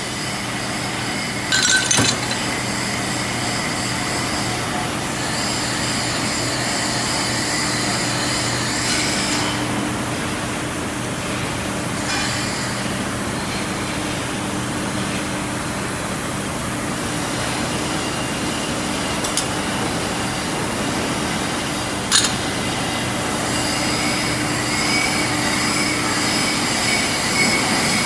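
Steady hiss and hum of a glassworking shop, its gas torches and machinery running, with a few sharp glass clinks: one about two seconds in and another about three-quarters of the way through.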